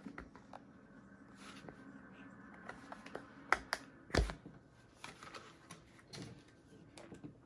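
Plastic fan parts being handled: scattered light clicks and knocks as a plastic blade is worked out of a box fan and onto a fan motor's shaft, with a few sharper clicks and one heavier thump about four seconds in.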